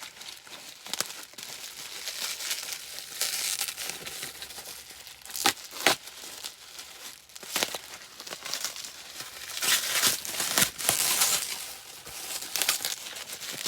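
A parcel being opened by hand: plastic packaging and bubble wrap crinkling and tearing in irregular bursts, with two sharp clicks about halfway through.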